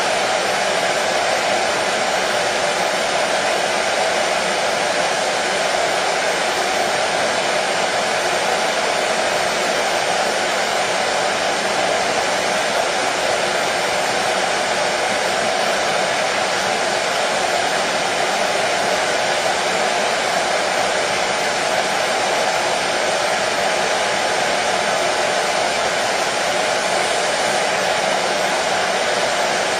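Hair dryer running steadily, an even whooshing hum with no change in speed, played as a soothing noise for colicky babies.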